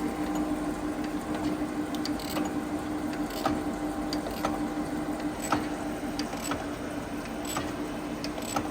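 Jones & Shipman 540 surface grinder running with a steady hum, with sharp clicks about once a second as the cross feed is worked.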